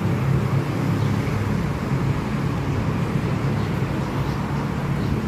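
Steady vehicle and traffic noise, an even rumble with a low hum.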